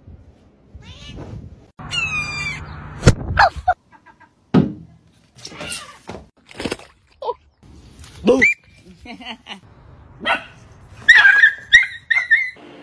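A string of short animal calls from pets, some sliding in pitch, with a sharp knock about three seconds in and a quick run of high calls near the end.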